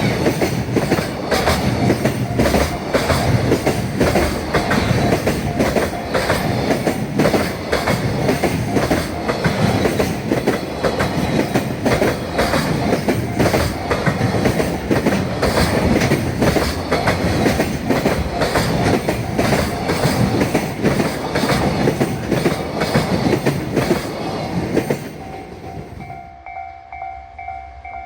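Freight train passing close by at speed, a long run of rapid wheel clicks over the rail joints. About 25 seconds in, the train noise falls away and a level-crossing warning bell is left ringing steadily.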